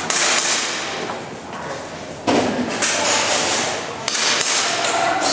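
Airsoft pistol shots fired in a rapid string on a competition stage, sharp cracks with BB hits on targets, echoing in a large hall. A pair of shots opens, then after a short pause come quick groups of shots through the rest.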